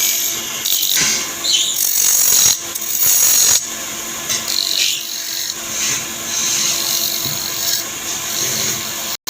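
Wood lathe running with a steady motor hum while a tool scrapes and rubs against the spinning wooden cot leg, louder for a stretch about two seconds in.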